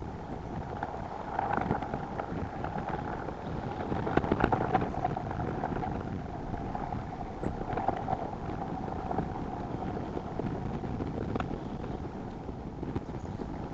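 Steady wind noise on an outdoor nest-camera microphone, with a few faint rustles and small knocks.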